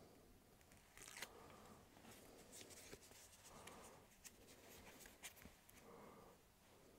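Near silence, with a few faint, scattered rustles and clicks as hands handle a foam shoe insole and its stick-on arch-support pad.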